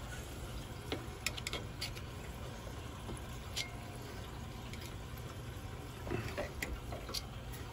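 Buderus Logamax GB142 condensing boiler running with its burner lit, a steady low hum. Scattered light clicks and taps come from hands working at the sheet-metal casing.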